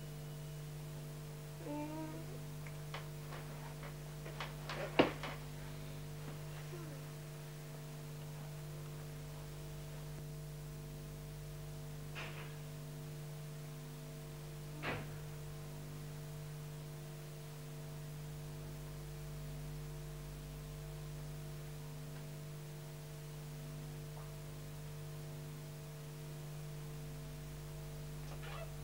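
Steady low electrical hum on an old broadcast soundtrack, broken by a few sharp knocks, the loudest about five seconds in and two fainter ones later.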